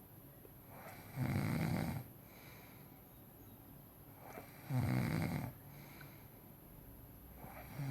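A man snoring: two long snores about three and a half seconds apart, with a third beginning right at the end.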